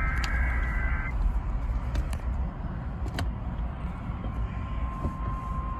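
Emergency Alert System broadcast. The end of a SAME header data burst, a stack of high data tones, cuts off about a second in. A steady single alert tone starts near the end. A constant low rumble of background noise runs underneath.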